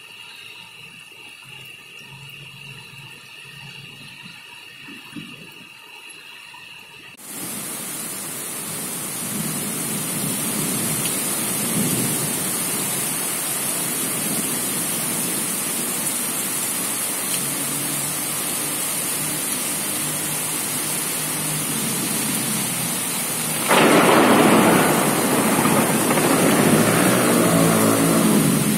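Heavy rain pouring onto a city street, an even hiss that sets in suddenly about seven seconds in after a quieter stretch of faint steady hum. Near the end, a louder rolling rumble of thunder rises over the rain.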